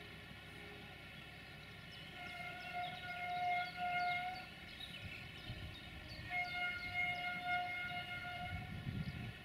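Diesel locomotive horn sounding two long, steady blasts, the second about two seconds after the first ends, over the low rumble of the 060-DA (LDE2100) hauling a freight train.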